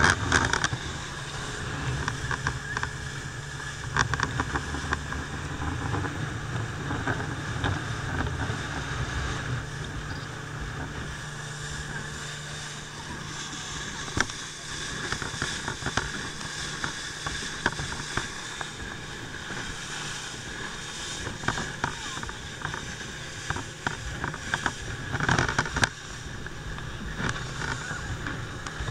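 Small ferry boat under way: its engine running steadily under the rush of water and wake, with wind buffeting the microphone. A few short thumps break through now and then.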